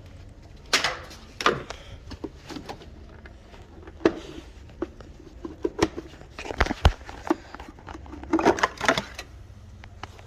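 Irregular clicks, knocks and rattles of hands working at a car's fuse box, with a low steady hum underneath.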